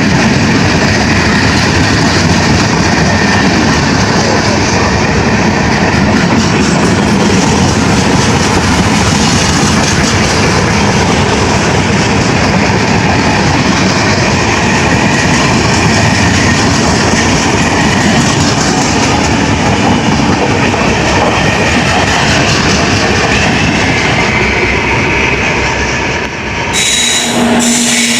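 Indian Railways express train running past on the rails: a loud, steady noise of wheels and coaches. Near the end the sound dips briefly and a steady low hum comes in.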